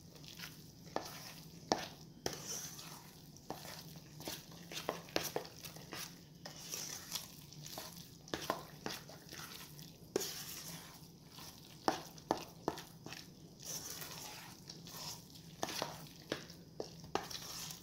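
A spoon stirring and scraping thick salmon-cake mixture of salmon, egg and breadcrumbs in a stainless steel mixing bowl. It makes irregular wet scrapes and frequent light clinks of the spoon against the metal bowl.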